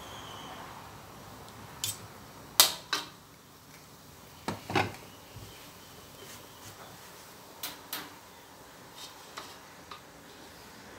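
Kitchen utensils clanking: a metal slotted ladle knocking against a steel wok and dishes in single sharp knocks, often in pairs, the loudest about two and a half seconds in.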